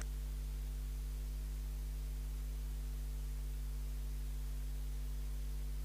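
Steady low electrical mains hum over a faint hiss.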